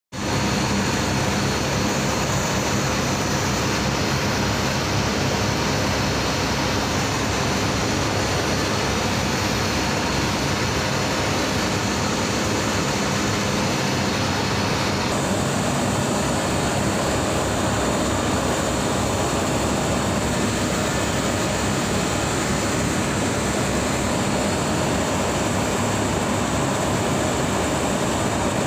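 Steady hum and whir of running HVAC machinery, an even fan-like noise with faint steady tones through it.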